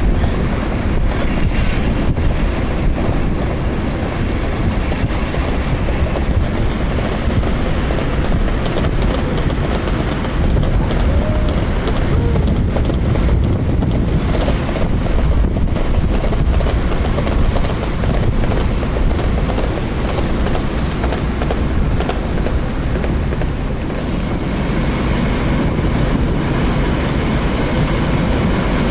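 British Rail Class 50 diesel-electric locomotive's English Electric V16 engine running steadily as it approaches, with wind rumbling on the microphone.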